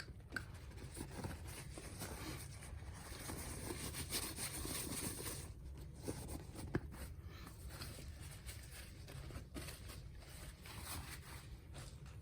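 Faint rubbing and scraping of a cloth wiping a Zippo lighter's metal case clean with Windex, with a few light clicks of the case being handled.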